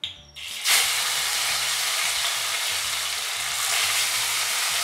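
Fish steaks slid into hot mustard oil in a kadai: the oil bursts into a loud sizzle about a second in and keeps frying steadily.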